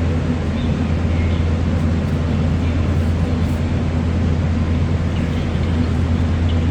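Steady low mechanical drone of a running engine or motor, holding one level with no change in pitch.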